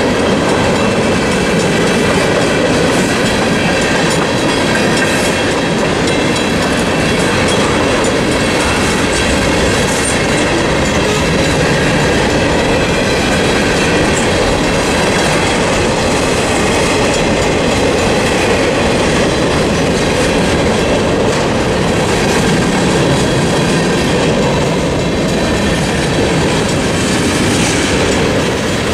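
Freight train cars rolling steadily past at a level crossing, wheels clacking over the rail joints under a continuous rumble. The crossing's mechanical bell keeps ringing.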